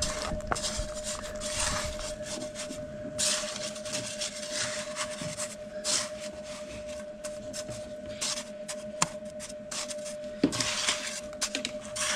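Irregular scraping and rubbing with a few sharp knocks, over a faint steady hum.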